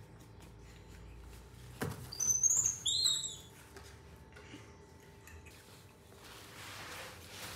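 A baby monkey squealing: a quick run of short, very high squeaks about two seconds in, just after a light knock.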